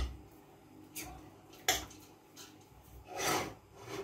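Hands kneading grated carrot with salt in a stainless steel pot: a few short scrunching, rubbing sounds, the longest about three seconds in.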